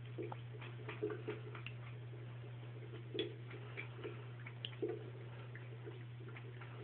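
Cat lapping water in a sink basin: irregular, soft wet clicks and licks, over a steady low hum.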